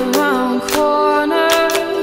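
Background music: a sung melody over plucked strings.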